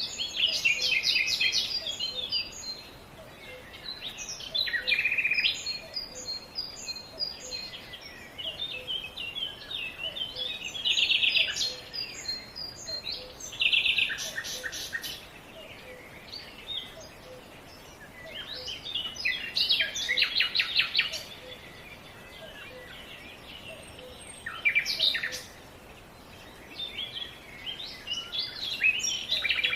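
Songbirds singing: phrases of rapid, high chirps and trills, one every few seconds, over a steady outdoor background hiss.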